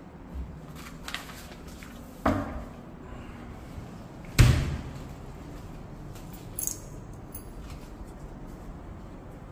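Wooden doors being shut: two thuds about two seconds apart, the second the louder, then a small click a couple of seconds later.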